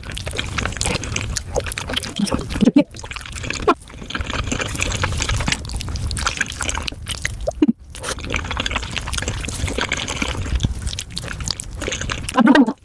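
Sped-up wet chewing, smacking and slurping of spicy beef feet, a dense rapid crackle of sticky, gelatinous mouth sounds. It breaks off briefly with sudden gaps a few times as one clip cuts to the next.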